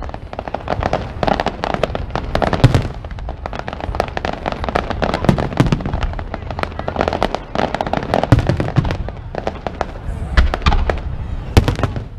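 Aerial fireworks display in full barrage: a rapid string of shell bursts and pops, several a second, with heavier booms every few seconds.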